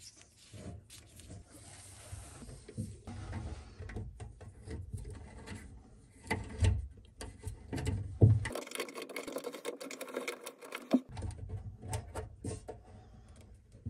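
Large plastic faucet mounting nut being turned by hand onto the faucet shank, with plastic tubing handled around it: irregular clicks and knocks of plastic on plastic, and a steadier rubbing stretch of a couple of seconds past the middle.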